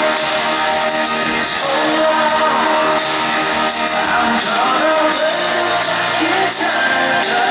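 Live pop ballad: grand piano with a male voice singing into a microphone, heard through a concert sound system.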